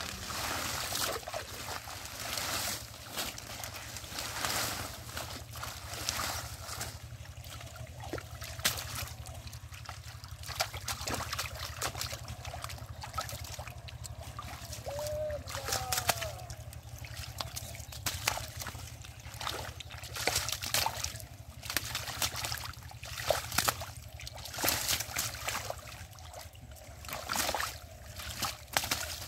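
Hands and a caught fish splashing and sloshing in shallow muddy water, in irregular bursts with dribbling water between them.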